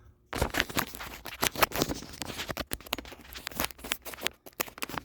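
Quick, irregular rustling, scraping and clicking as things are handled close to the microphone, most likely the work light that just fell out being picked up and put back.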